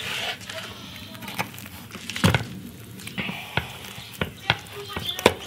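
Knife cutting through a baked pizza on a wooden board: crunching of the crust with several sharp knocks of the blade against the board, the loudest about two seconds in.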